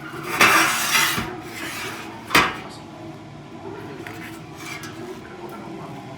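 Metal kitchenware clattering: a rattling scrape lasting about a second, then one sharp clank a little after two seconds in.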